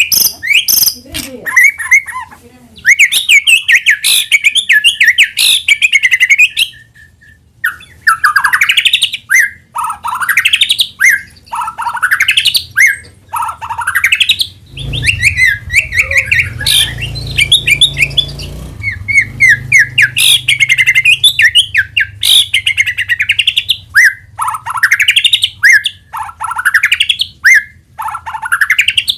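White-rumped shama (murai batu) singing loudly in quick, varied phrases, among them runs of rising whistled sweeps. A low hum sits under the song for a few seconds around the middle.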